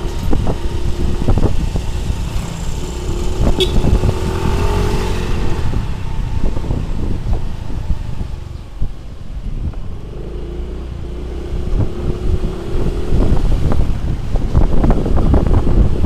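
Motor scooter engine running on the move, its note rising and falling a little with the throttle, under heavy wind buffeting on the microphone.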